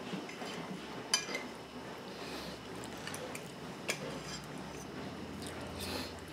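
Metal fork clinking and scraping against a dinner plate, with a few sharp clinks: the loudest about a second in, another near four seconds.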